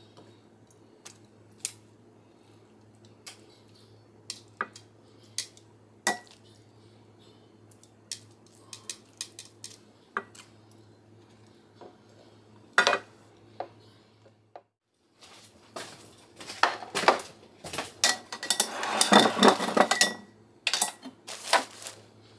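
Metal tongs clicking and tapping against a glass bowl and a ceramic plate while shredded chicken is served, as scattered single clinks. Near the end comes a longer run of dense dish-and-utensil clatter, louder than the rest.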